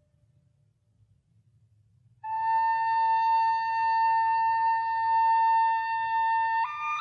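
Background music: after about two seconds of near silence, a single instrument holds one long steady note, stepping up to a higher note near the end.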